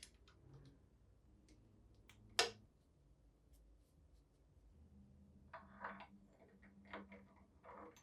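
Faint clicks and taps, with one sharp click about two and a half seconds in, then a quicker run of light clicking and tapping from about five and a half seconds.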